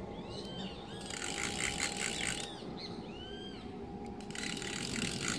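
Fishing reel clicker ratcheting in two bursts of rapid clicks, about a second in and again near the end, as a fish pulls line off a rod set in its holder. Birds call with repeated arched whistles in between.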